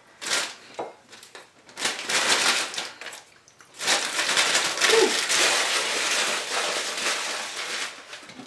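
Thin clear plastic bag crinkling and rustling as a hand works inside it, in a short stretch about two seconds in and a longer one from about four seconds in.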